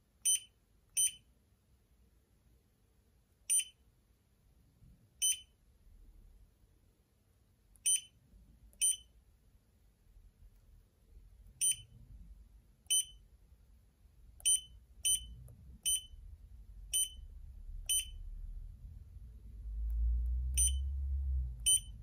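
Short high-pitched beeps from a STONE TFT LCD touch display's feedback buzzer, one for each tap on the screen, about fifteen at irregular intervals. A low rumble rises near the end.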